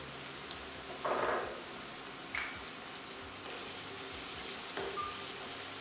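Dried prawns, shallots and curry leaves frying in oil in a non-stick pan with a steady sizzle. A wooden spatula stirs the mix, with a couple of short scrapes about one and two and a half seconds in.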